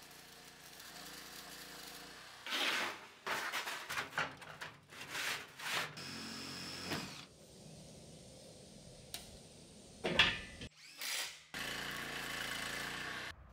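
Power tools working steel in a series of short separate bursts cut together, with grinding that throws sparks; one burst about six seconds in carries a steady high whine.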